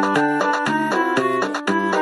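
Casio electronic keyboard playing a lively tune: melody and chords over a steady drum beat from its accompaniment.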